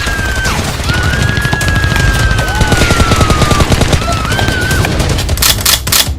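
Rapid, continuous automatic gunfire over a music track, with a few louder noisy bursts near the end.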